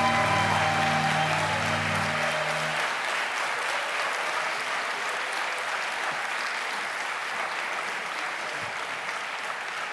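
Audience applauding over the last held chord of a song's accompaniment. The chord ends about three seconds in, and the applause carries on, slowly dying down.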